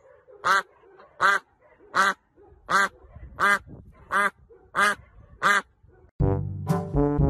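A white domestic duck quacking loudly and steadily: eight short quacks, about one every 0.7 s. Music cuts in about a second before the end.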